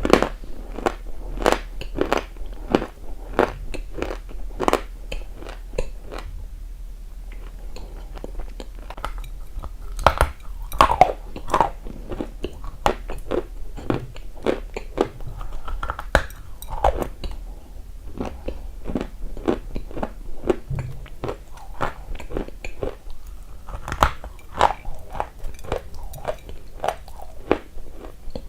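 Close-miked biting and chewing of a dry, crunchy mineral of the eating-clay or chalk kind: many sharp crunches in quick runs, with a softer, sparser stretch of chewing about six to nine seconds in.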